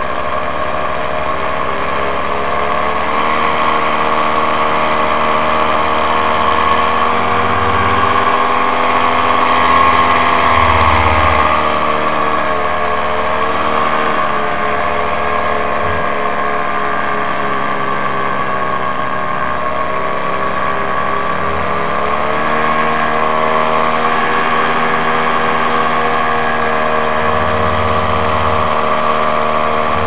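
Paramotor engine running steadily in flight, its pitch easing down and up again a few times.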